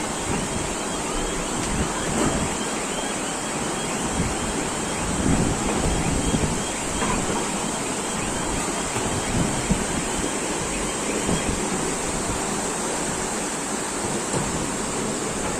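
Floodwater rushing, a steady noise, with wind buffeting the microphone in low gusts.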